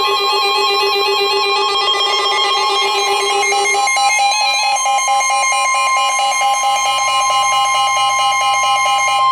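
Weather-radio alert tone: a steady electronic tone near 1 kHz, the kind of tone that comes just before a warning message, layered with other electronic tones that step up and down in pitch. A lower tone drops out about four seconds in, after which another tone pulses rapidly.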